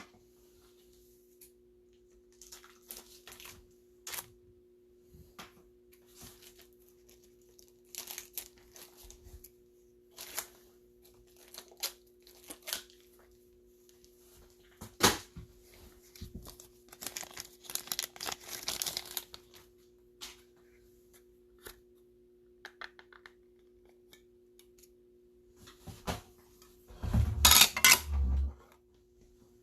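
Stiff plastic card-holder packaging being worked open by hand: scattered crinkles, clicks and tearing, with a louder burst of crackling about three-quarters of the way through.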